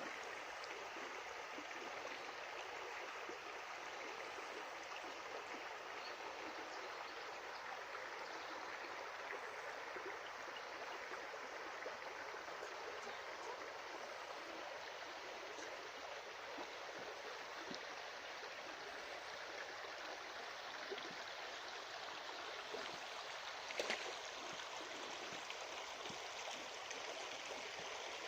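Stream of water running over stones, a steady even rush and gurgle. A single short click or knock sounds shortly before the end.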